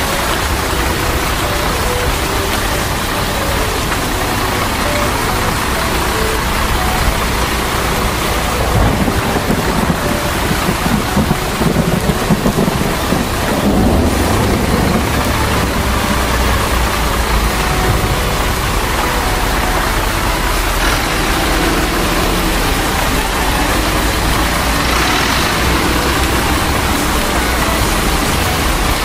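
Steady heavy rain, a continuous hiss, over a low rumble that grows rougher and louder from about eight to fifteen seconds in.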